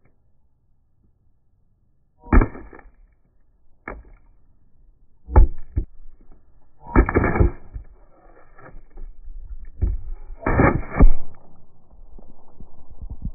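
A series of about six heavy thuds a second or two apart as a large wooden hammer smashes down onto a plastic water bottle on a wooden post, the later strikes followed by a low rumbling tail.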